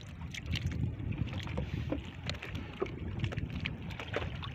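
Wind on the microphone and sea noise aboard a small fishing boat, with scattered light clicks and knocks throughout.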